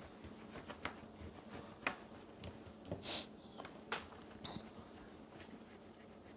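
Faint rubbing and light taps of fingers rolling a thin rope of modelling chocolate on a plastic cutting board, with a few sharp light clicks about a second apart and a short hiss about three seconds in.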